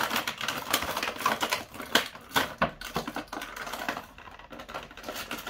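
Stiff clear plastic packaging crackling and clicking as it is bent and dented to free a trapped figure: quick irregular clicks that thin out and get quieter in the second half.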